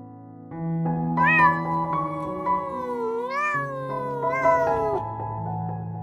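A domestic cat gives one long meow of about four seconds that rises and falls in pitch, over soft piano music.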